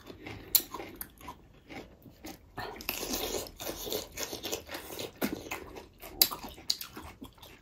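Close-up crunching bites and chewing of raw cucumber, with scattered sharp crunches and a denser stretch of chewing about three seconds in.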